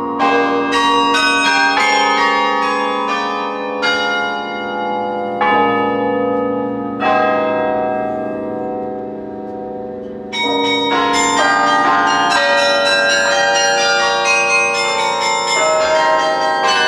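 Sather Tower's carillon playing a tune, its struck bells ringing over one another with long decays. The playing thins to a single fading note for a few seconds midway, then resumes with quicker, denser notes.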